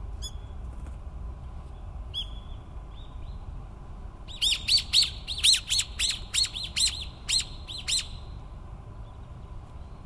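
Common kingfisher calling with sharp, high piping notes: two single calls near the start, then from about four seconds in a rapid run of a dozen or so calls, about three a second.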